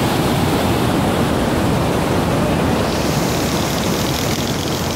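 A fast mountain river rushing over boulders in whitewater rapids, a loud, steady wash of noise. Its hiss grows brighter about three seconds in.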